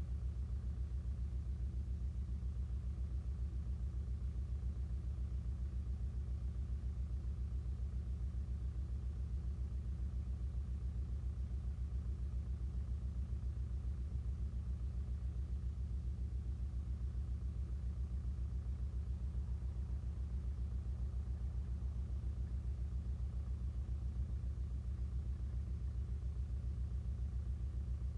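International Harvester TD-9 crawler tractor's diesel engine idling steadily, a low, even throb with no revving.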